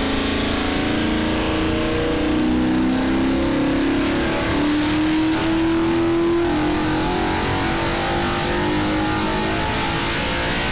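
Nissan VK56DE V8 engine running on an engine run stand, its revs climbing slowly for the first half and then easing back a little.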